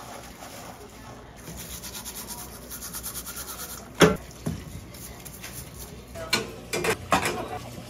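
Dishes being scrubbed by hand with a scrub brush: a run of quick, even scrubbing strokes, then one sharp knock about four seconds in, the loudest sound, and several clacks of dishware being handled near the end.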